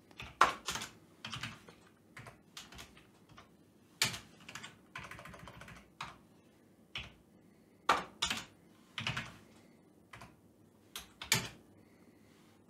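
Computer keyboard typing in short, irregular bursts of keystrokes with pauses between them.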